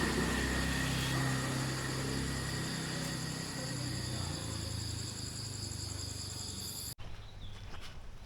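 Insects droning in several steady high tones over a low, steady rumble, cut off suddenly about seven seconds in.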